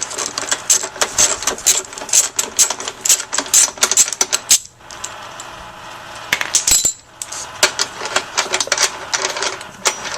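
Socket ratchet wrench clicking rapidly as a stuck wheel nut is wound off a lawnmower's wheel bolt. The clicking stops for a second or so about halfway, then carries on.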